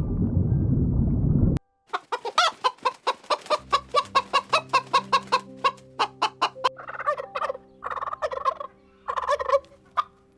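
Chicken clucking in a quick run of short clucks, about five or six a second, then three longer calls. Before this there is a low rumbling noise that cuts off suddenly.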